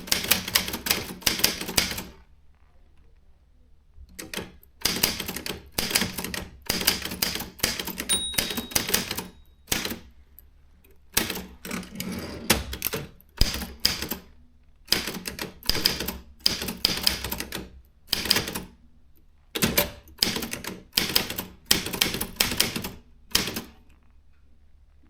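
Consul 1502 typewriter being typed on: quick runs of keystrokes clacking in bursts with short pauses between them, stopping near the end.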